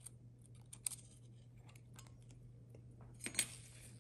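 Faint scattered clicks and taps from gloved hands handling an opened iPhone 11 Pro, its display and flex cables; a small cluster of clicks a little past three seconds in is the loudest. A faint steady low hum lies under them.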